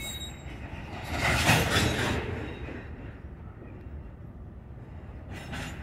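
Freight train of covered hopper cars rolling slowly on the rails, a steady low rumble, with a louder rushing noise about a second in that lasts about a second.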